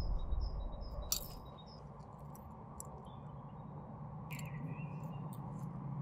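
Quiet outdoor ambience with small birds chirping in short, high notes: a quick run of them in the first second and another call about four seconds in, over a low steady hum. There is a sharp click about a second in.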